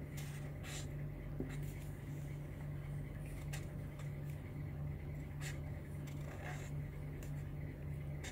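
Marker pen writing on card, a string of short, faint separate strokes as letters are formed, over a steady low hum.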